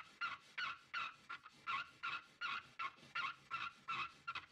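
A Mazda 13B rotary engine side seal rubbed back and forth by hand on sandpaper: rhythmic squeaky scraping strokes, about two and a half a second, as the seal is sanded down to fit its gap.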